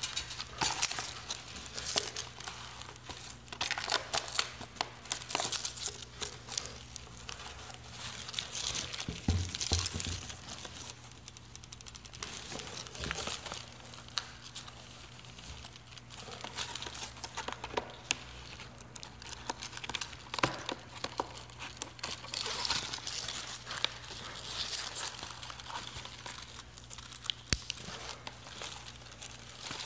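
Handling noise from a rugged plastic tablet case being worked into a ballistic nylon outer case: irregular fabric rustling and scraping, with scattered clicks and knocks, over a faint steady hum.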